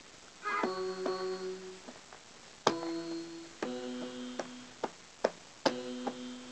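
Electronic toy drum slapped by a baby's hands: each of about four hits sets off a short run of held keyboard-like notes lasting about a second, with a few lighter taps in between.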